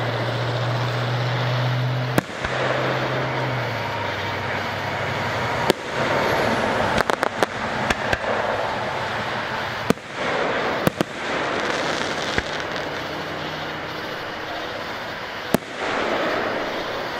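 Aerial fireworks shells bursting in sharp bangs every second or two, with a quick run of crackling pops about seven seconds in, over a steady noisy wash. A low steady hum lasts through the first few seconds.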